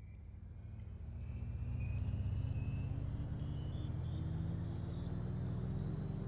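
Electronic intro music swelling in from silence: a low, full synth drone whose pitch slowly rises, with a thin high tone gliding upward above it.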